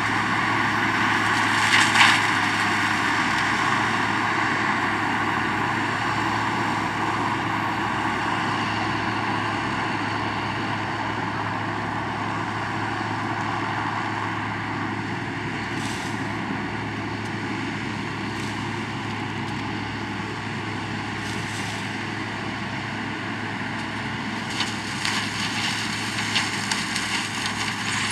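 Tractor-mounted sugarcane harvester's diesel engine running steadily under load while cutting cane, slowly fading as it moves away. Near the end, a crackling clatter joins in as cut cane pours from the elevator into the truck.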